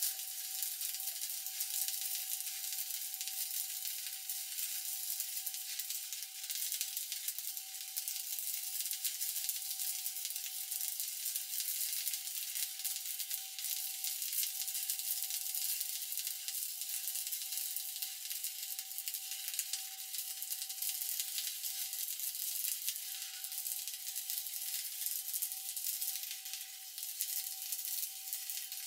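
Stick-welding (SMAW) arc burning steadily on a vertical weld, a continuous sizzling crackle like frying with no breaks, over a thin steady whine.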